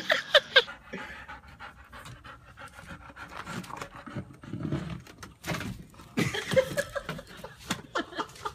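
A chocolate Labrador panting with its mouth held open around a long stick.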